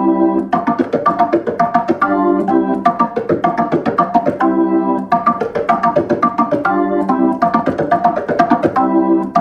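Hammond organ playing a syncopated funk riff: quick, short chord stabs in a sixteenth-note feel with ghost notes, alternating between the hands, and a longer held chord every two seconds or so.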